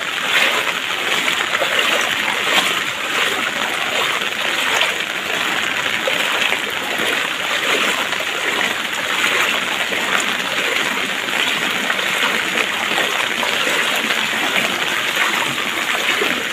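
Heavy rain falling onto standing floodwater, a steady splashing hiss.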